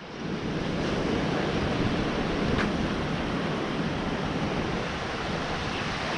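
Surf washing through a kelp-covered rocky reef as the tide pushes in, a steady rush of white water, with some wind on the microphone.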